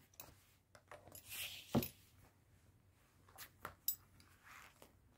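Faint handling sounds of a belt being looked over: a short rustle, a sharp click, then three more clicks in quick succession about halfway through.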